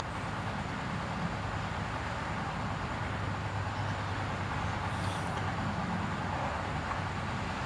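Steady outdoor background rumble with a low hum, unchanging throughout, with a single sharp click at the very start.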